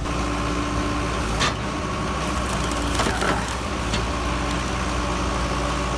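Wood-splitting machine running with a steady mechanical hum, with sharp cracks of wood about one and a half and three seconds in.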